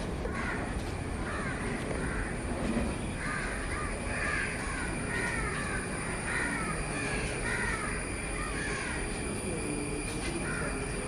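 Birds calling over and over, a string of short calls one after another, over a steady background hiss.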